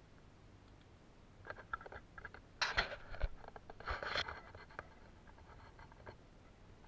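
Handling noise: scattered light clicks and scrapes, with two louder rustling scrapes about three and four seconds in.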